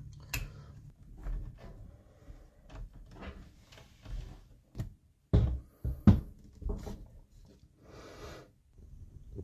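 Handling noises of PC parts being fitted: a string of irregular plastic-and-metal clicks and knocks, the loudest a cluster about five to six seconds in, with some light rustling.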